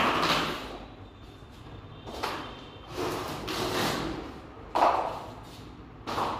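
Interlocking rubber floor mats being handled and laid: a series of scraping, swishing rubs as the pieces are moved over the floor, with a sharper thump a little before the end.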